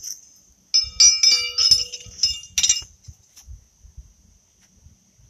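Steel pitching horseshoes clinking and ringing against each other as they are gathered up from the pit. The clanks come in a quick cluster from about one to three seconds in, each leaving a short bell-like ring.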